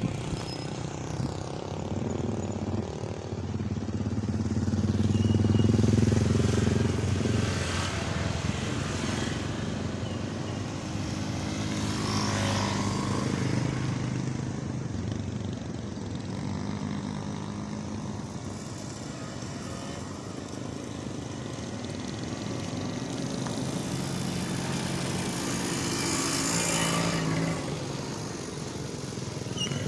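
Engines of motor vehicles going by, a low hum that swells and fades several times, the loudest about six seconds in and another rising near the end.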